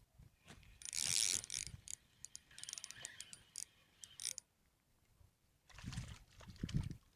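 Spinning reel being cranked in quick bursts, a fast clicking whir as the line is wound in against a hooked fish bending the rod. Near the end come low muffled bumps.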